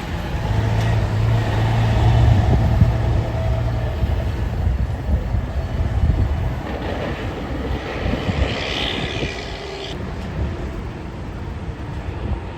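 Heavy truck driving past, its diesel engine drone loudest in the first few seconds and then fading, with a short higher-pitched hiss near the end.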